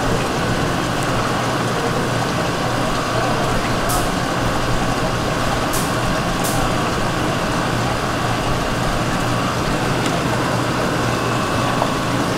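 Steady background din of a busy fish market, with a low machine hum under it and a few sharp clicks.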